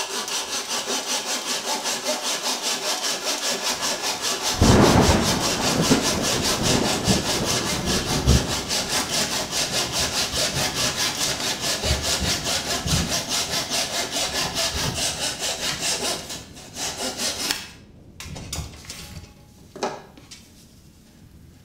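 Scroll saw cutting a small piece of wood: a fast, even chatter of the reciprocating blade, growing louder about four seconds in as the blade bites harder. The cutting falters and stops about three-quarters of the way through, followed by a few light knocks as the piece is handled.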